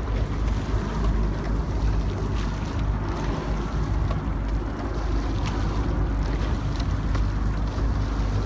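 Motor launch's engine running steadily at cruising speed, a constant low hum, with wind buffeting the microphone and water washing past the hull.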